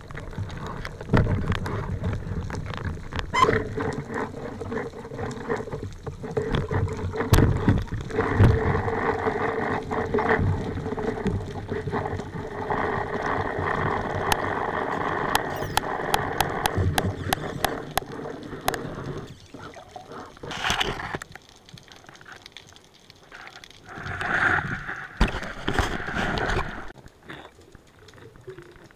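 Muffled water rushing and bubbling heard through an underwater camera housing as a freediver moves after a speargun shot, with scattered clicks and knocks. It dies down about two-thirds of the way in, followed by two shorter bursts of bubbling.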